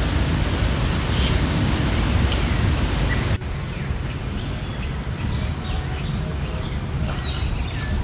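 Outdoor noise with a low wind-like rumble on the microphone and a few faint bird chirps. About three seconds in, the rumble drops abruptly, and scattered short bird chirps carry on.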